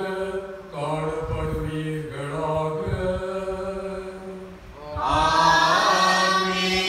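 A man's voice chanting the liturgical blessing in Tamil on a near-steady reciting tone, the pitch stepping down slightly about a second in. About five seconds in, a louder, fuller sung phrase begins.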